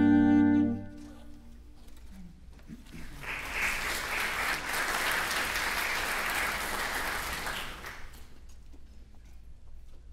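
A saxophone quartet's held final chord cuts off about a second in. After a short pause, an audience applauds for about five seconds, then the applause dies away.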